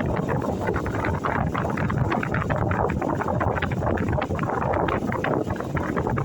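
Steady rumbling, rushing noise with constant crackling throughout, which the uploader presents as the sound of an earthquake.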